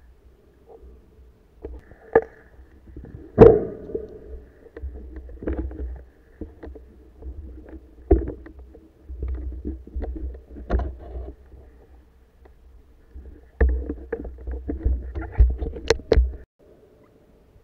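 Muffled underwater sound as a diver's camera moves through submerged reeds: a low rumble of water movement with irregular knocks and clicks, the loudest about three and a half seconds in. It cuts off abruptly shortly before the end.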